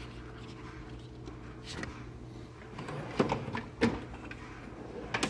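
Tools being handled in a metal tool chest: a few short knocks and clicks, about a second and a half in, around three to four seconds in and near the end, over a low steady hum.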